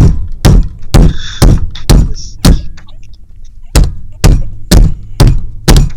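Heavy thumps from hands pounding a surface, about two a second, mimicking chest compressions to revive a dog. They pause for about a second midway, then carry on.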